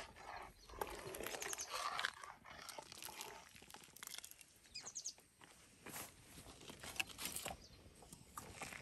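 Faint clinks and scrapes of a steel ladle stirring simmering khichadi in a large aluminium pot, with a few short bird chirps in the background.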